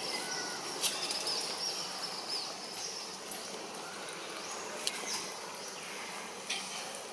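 Outdoor forest ambience: thin high bird whistles and calls over a steady high hiss of insects, with a few sharp clicks.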